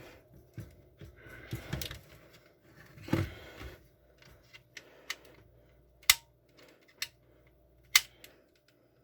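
Smoke detector being handled without going off: rustling and scraping, then a few sharp plastic clicks about a second apart in the second half.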